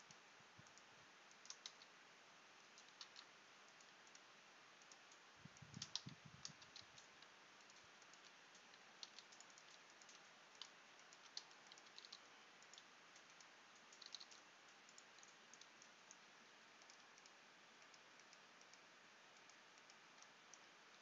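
Faint computer keyboard keys tapped at irregular intervals as shortcuts are pressed, over a steady low hiss, with a denser cluster of clicks and a soft low thump about six seconds in.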